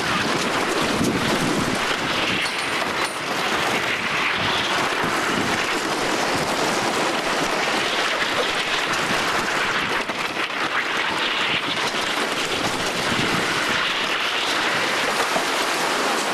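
Wind rushing over the microphone while the Screechin' Eagle's wooden roller coaster train runs along the track with a steady rumble.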